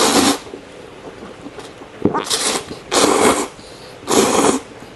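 A man slurping instant noodles, four loud slurps of under half a second each, one at the start and three more about a second apart near the end.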